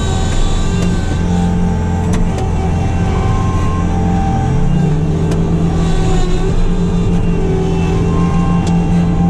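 A vehicle engine running steadily, its pitch shifting slightly about halfway through, with a few faint clicks.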